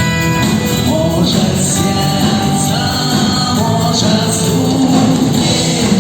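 Music: a band playing a rock song, with some singing.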